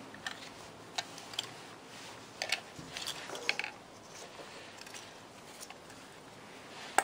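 Handling noise from a Bosch ignition distributor turned over in gloved hands above crumpled paper: scattered light clicks and rustles of metal parts and gloves, busiest around the middle, with a sharp click at the very end.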